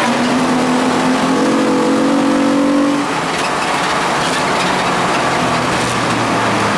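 Ford Contour race car's engine heard from inside the cabin, rising in pitch under acceleration for about three seconds, then dropping and running on steadily, over loud road and wind noise.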